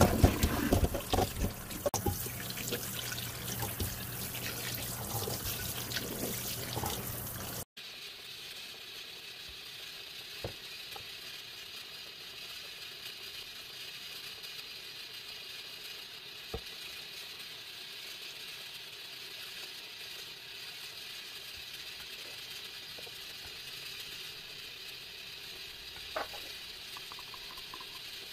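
Kitchen tap running into a stainless steel sink as parboiled chicken pieces are rinsed and rubbed by hand in a metal colander; the water stops abruptly about eight seconds in. Afterwards only a quiet steady hiss with a few faint clicks.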